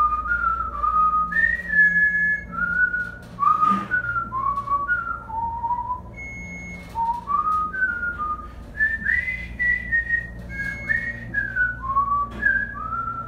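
A man whistling a tune, a run of clear notes stepping up and down, some short and some held. It goes a little off key near the end.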